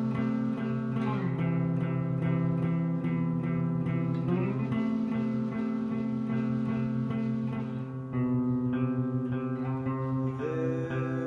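Guitar music with no singing: ringing, sustained chords over a steady picked rhythm, with a few slides between notes, one about four seconds in and another near the end.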